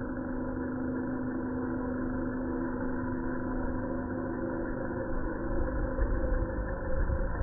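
Large RC scale helicopter with T-REX 600 mechanics hovering: a steady drone of its motor and main rotor, over an uneven low rumble.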